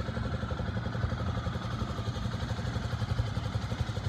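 Kawasaki KLX250's single-cylinder four-stroke engine idling steadily, with a quick, even exhaust pulse.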